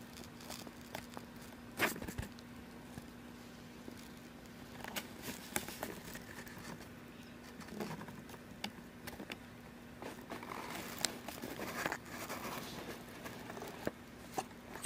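Quiet room with a steady low hum and scattered faint clicks and rustles, the sharpest a click about two seconds in.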